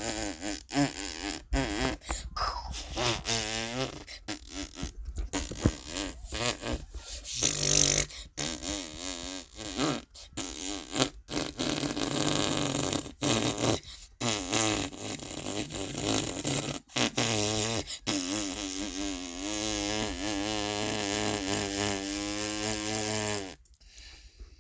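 Fart sound effects edited together in quick succession: many short farts cut off abruptly one after another, then a long wavering fart lasting several seconds that stops suddenly near the end.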